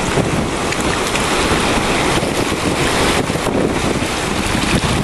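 Shallow waves washing over lava rock at the shoreline, a steady rushing of water, with wind buffeting the microphone and making an uneven low rumble.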